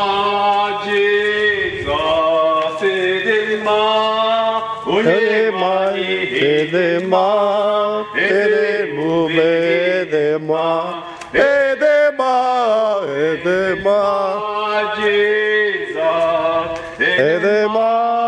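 Two men singing a song in a Nigerian language, voices carrying on phrase after phrase.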